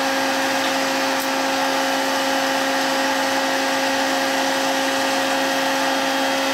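Ringling Brothers cannon hot-air popcorn popper running: the fan blows a steady rush of hot air with a constant motor hum while the unpopped kernels heat in the barrel, before popping begins.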